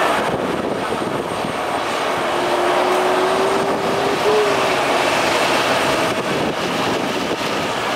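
Boeing 737 jet engines running as the airliner moves on the apron, a steady rushing noise. A faint low tone rises slightly in pitch through the middle.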